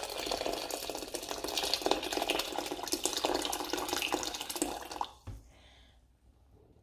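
Water poured from an electric kettle splashing steadily into an aluminium pressure cooker of lentils and spices; the pouring stops about five seconds in.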